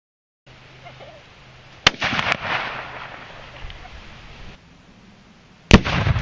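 A sharp bang about two seconds in, followed by a few quick cracks and a fading rumble. Near the end, a .308 rifle shot sets off an exploding target: the loudest blast, with a long rumbling decay.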